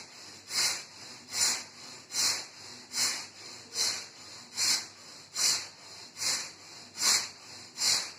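Forceful rhythmic breathing through the right nostril alone (dakshin bhastrika pranayama). About ten sharp, loud breaths come out a little faster than one a second, each followed by a quieter intake.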